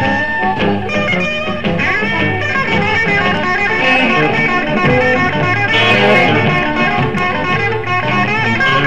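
Electric blues band playing live: an electric guitar leads with sliding, bending notes over bass guitar and drums.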